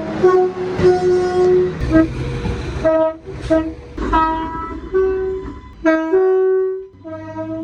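Train horn sounded in a rapid series of short toots of varying length, with longer blasts about a second in and about six seconds in, over a low rumble.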